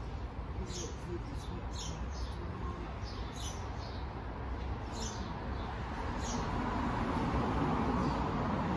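Short high chirps, about seven of them spaced unevenly through the first six seconds, over steady outdoor background noise that grows louder in the second half.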